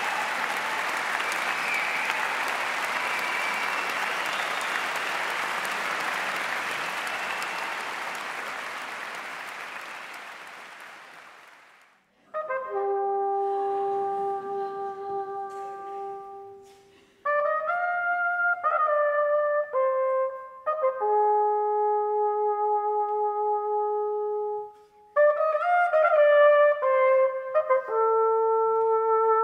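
Audience applause in a concert hall, fading out, then a small chamber ensemble of strings and a brass instrument begins playing slow, sustained chords about twelve seconds in, with brief breaks between phrases.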